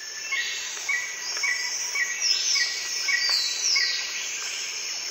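Outdoor chorus of insects shrilling steadily and high, with a short chirp repeated about twice a second and a few falling bird calls over it.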